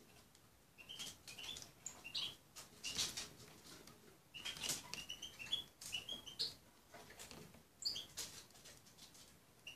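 Small birds giving short, high chirps, scattered in ones and little runs of two or three, with sharp clicks among them from a small finch-like bird pecking at berries in a glass bowl.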